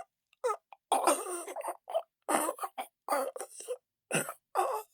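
A man choking and gasping for air: short broken bursts of strained breath and coughing, about eight in a row, the longest about a second in, with dead silence between them.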